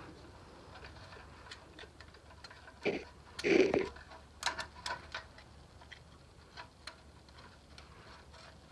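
Scattered small metallic clicks and taps of hand tools at a VW Beetle's valve rocker arm while the valve clearance is checked, with a couple of louder scrapes about three seconds in.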